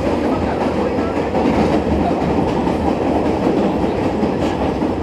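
Vintage New York City subway train running at speed, a steady rumble of wheels on the rails with a low hum underneath.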